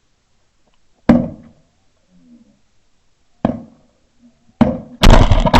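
Shotguns firing: four sharp blasts, about a second in, then near three and a half, four and a half and five seconds, each with a short echoing tail. The last blast is the loudest.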